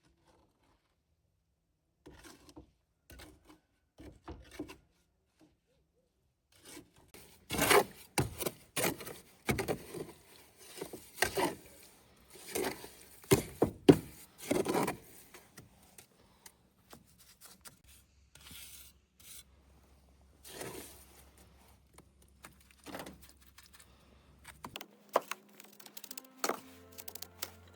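Irregular scraping and rubbing strokes, loudest in a cluster of quick strokes in the middle. Soft music comes in near the end.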